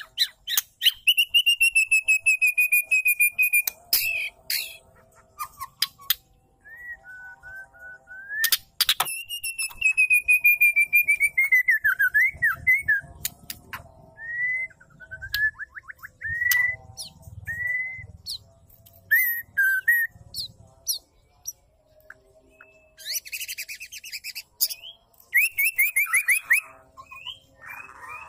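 Female white-rumped shama singing in phrases: long clear whistles that glide slightly down, short whistled notes, and rapid sharp clicks and chattering rattles between them.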